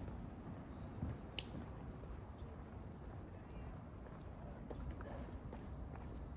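Crickets chirring in a steady, high-pitched, faintly pulsing trill, with soft footsteps and a single sharp click about a second and a half in.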